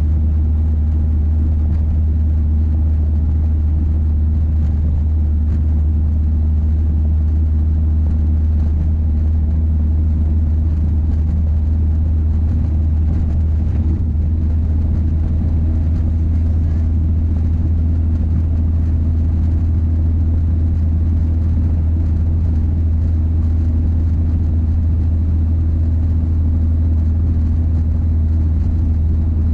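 The 1966 Triumph Spitfire's 1147 cc four-cylinder engine runs steadily while the car is driven along, making a loud, steady low drone with road noise.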